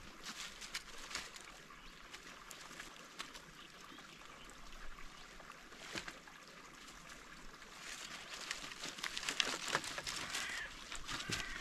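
Dry firewood sticks knocking and clattering against each other as they are stacked by hand into a bundle, with dry leaves crackling underneath. The handling grows busier and louder over the last few seconds.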